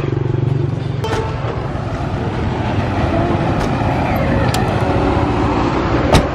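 Road traffic: vehicle engines running steadily with a low hum, loudest in the first second. About six seconds in, a single sharp knock, a car door shutting.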